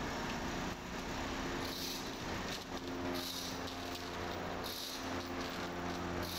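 Steady machine hum with chain rattling in short bursts about every one and a half seconds as the hand chain of a chain hoist is hauled to pull a dozer track.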